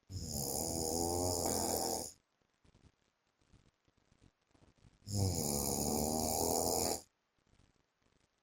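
Man snoring in his sleep: two long snores about five seconds apart, each lasting about two seconds, with quiet breathing between them.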